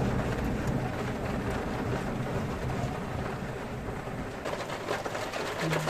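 Heavy rain falling steadily during a thunderstorm, with a low rumble of thunder underneath. A few sharper taps come near the end.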